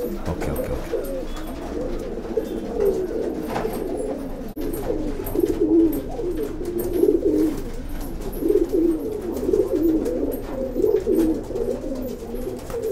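Domestic Rakdher tumbler pigeons cooing repeatedly, low wavering calls that overlap and run on without a break.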